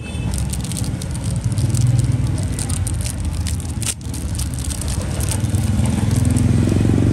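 Steady hum of motor-vehicle traffic, swelling in the second half as an engine passes close. Over it come light clicks and scrapes of metal lighter cases being handled.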